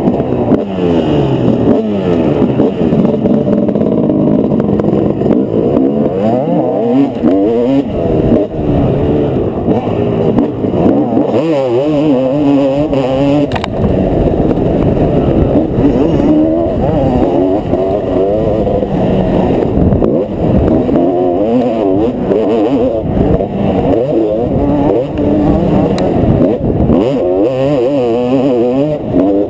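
Dirt bike engine revving hard, its pitch climbing and dropping again and again as the rider opens and closes the throttle and shifts through the gears on a motocross track. It is picked up close by a helmet-mounted camera.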